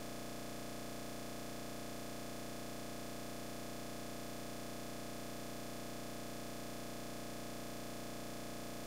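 Steady, unchanging electronic buzz and hiss replacing the speech: a recording glitch in which the speaker's voice cuts off abruptly and a constant digital noise takes its place.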